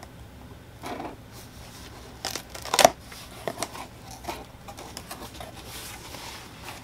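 Box cutter slicing the packing tape on a cardboard box, then the cardboard flaps being pulled open: scattered scrapes and clicks, with one sharp snap nearly three seconds in and a soft rustle of cardboard later on.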